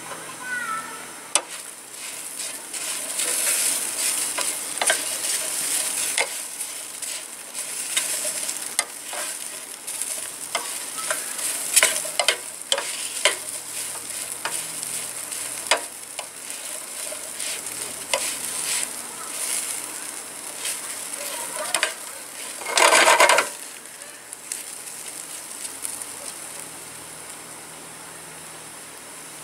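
Hash browns sizzling in a frying pan on a portable camp stove, with a metal spatula scraping and tapping the pan as they are stirred. About two-thirds of the way through there is one louder noise lasting about half a second, and the sizzle is quieter near the end.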